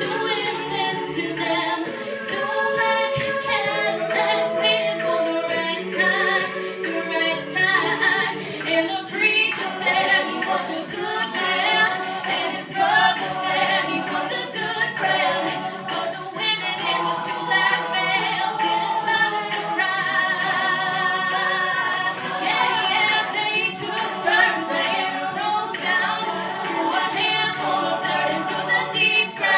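A mixed-voice a cappella group singing a song live: many men's and women's voices in harmony, with no instruments.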